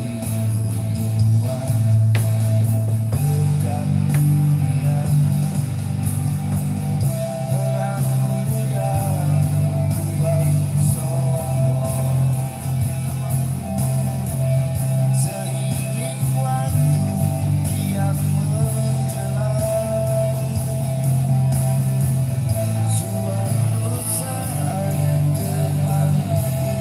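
Rock song with guitar, bass and singing, played back loud through a Blazer guitar combo amplifier, its bass notes changing every few seconds.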